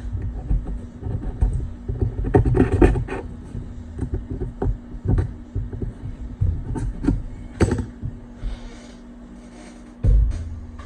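Irregular scratching and rubbing on the iPad mini 2's frame as it is wiped clean of old adhesive with alcohol, with several sharp clicks, busiest about two to three seconds in; a steady low hum sits underneath.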